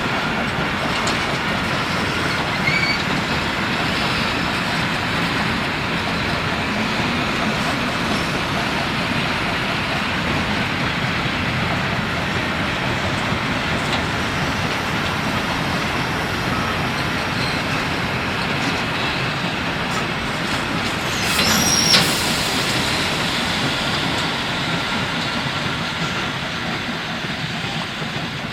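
Steam-hauled train of empty coal wagons running, a steady rumble and rattle of rolling stock, with a brief high squeal about three-quarters of the way through.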